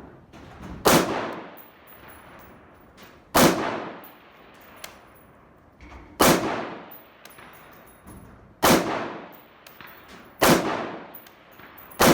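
Semi-automatic AR-15 style rifle (a retro M16A1/SP-1 build) firing six single shots, about two to three seconds apart. Each shot rings out and dies away over about a second.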